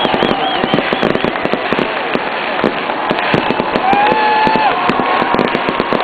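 Fireworks display going off: a dense, continuous run of bangs, pops and crackles as aerial shells burst.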